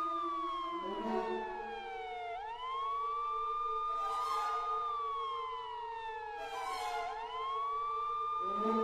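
Emergency vehicle siren wailing: it holds a high pitch, slides slowly down for a couple of seconds, then swoops quickly back up, repeating about every four and a half seconds.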